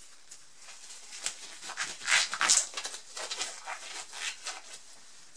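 Blue disposable rubber gloves being pulled onto the hands, the thin rubber rustling and snapping in irregular bursts, loudest about two seconds in.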